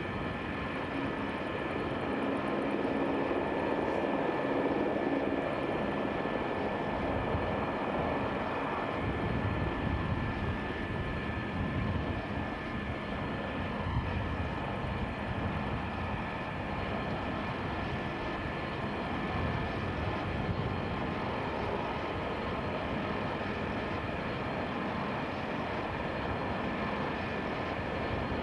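Airbus A220-300's twin Pratt & Whitney PW1500G geared turbofans on landing approach: a steady jet rumble with a thin high whine on top.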